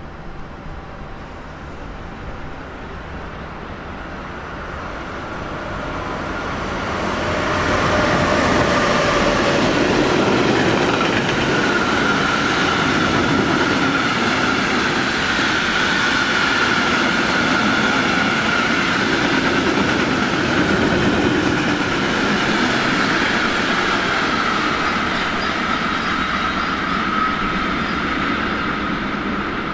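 A train approaches and passes close by. It grows louder over the first several seconds, then stays loud for about twenty seconds of wheel noise on the track, with a steady high whine over it.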